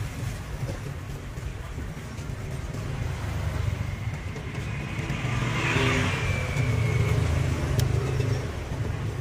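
A low engine rumble that swells in the second half, with a short hiss about six seconds in.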